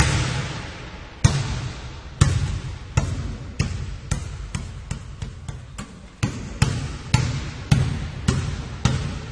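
A basketball being dribbled by one player: about sixteen bounces, each with an echoing tail. They speed up from about one a second to over two a second in the middle, then slow again near the end.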